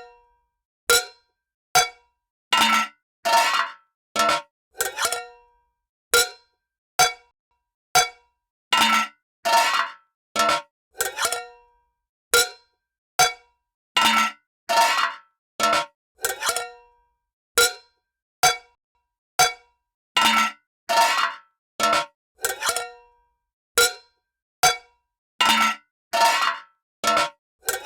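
A series of separate metal lid sounds: short clanks and scrapes of a metal lid being lifted and set down, each with a brief metallic ring, about one or two a second with short silences between.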